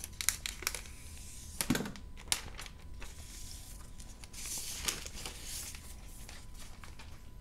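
Thin plastic protective film being peeled off the aluminium underside of a new MacBook Pro and crinkled in the hand: soft crackles and scattered sharp clicks, with a short rustle about four to five seconds in.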